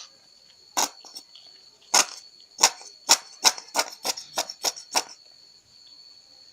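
A spoon knocking against a mixing container: about ten sharp taps, coming faster towards the end, stopping about five seconds in.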